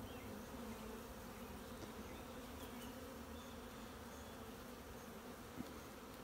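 Honey bees buzzing around an open hive and a frame of brood: a faint, steady hum.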